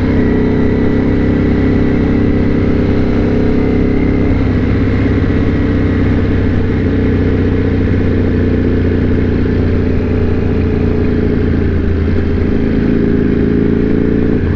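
Motorcycle engine running at a steady engine speed, its note holding level.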